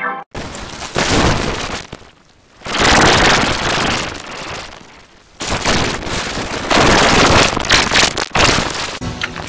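Harsh, heavily distorted noise from an effects-edited logo soundtrack, in three long loud stretches with short drops between them.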